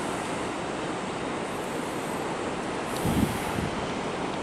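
Steady outdoor rushing noise of wind and water, with one brief low buffet of wind on the microphone about three seconds in.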